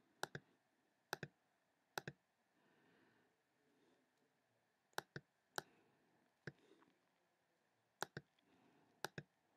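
Button clicks of a computer pointing device, mostly in quick pairs like double-clicks, about eight times at irregular intervals over near silence.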